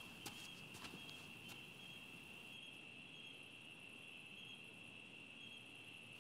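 Faint, steady chirring of crickets, with a few soft clicks in the first second and a half.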